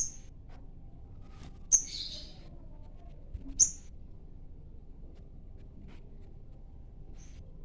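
Male sogon in breeding condition giving short, sharp, high-pitched chirps: three loud ones a second or two apart, the second trailing into a brief buzzy trill, and a faint one near the end. It is a territorial call to a rival.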